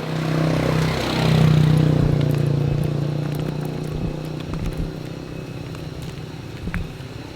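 A motor vehicle's engine running with a steady drone, growing louder about a second in and then slowly fading away.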